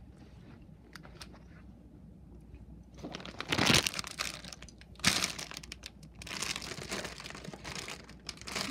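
Plastic packet crinkling and rustling close to the microphone. It comes in loud bursts starting about three seconds in, after a quieter stretch with a few faint clicks.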